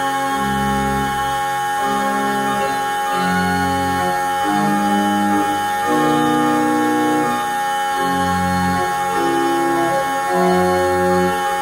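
Organ music: sustained notes in several parts, with a bass line changing note about once a second beneath a high note held throughout.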